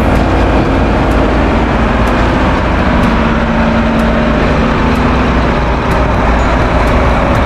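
Heavy diesel engines of a concrete pump truck and ready-mix mixer trucks running steadily under load, a constant loud drone with a few faint clicks.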